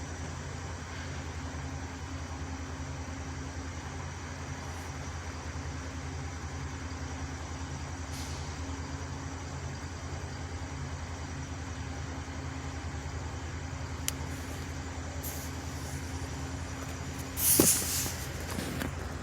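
A heavy truck's engine running steadily with a low, even drone. Near the end there is a sudden loud bang with a short hiss.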